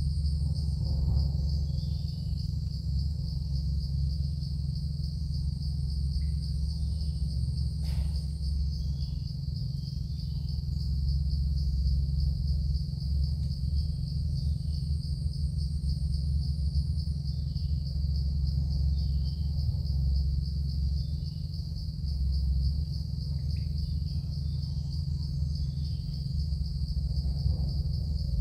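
Evening insects trilling steadily in one high, fast-pulsing tone, over a steady low rumble that is the loudest sound. One sharp click about eight seconds in.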